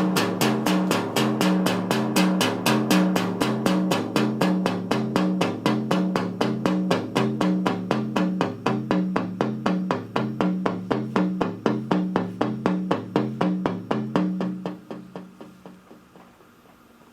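Moog synthesizers playing a fast sequenced pattern of short, percussive notes, about four or five a second, cycling through a repeating low melodic figure. It fades out near the end.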